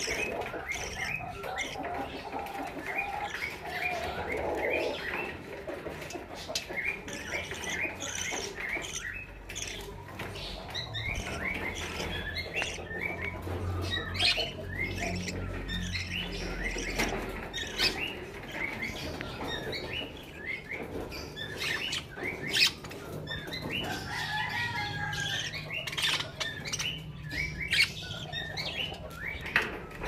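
A group of budgerigars chattering: many short, quick chirps and warbles in a continuous stream, with scattered sharp clicks and rustles.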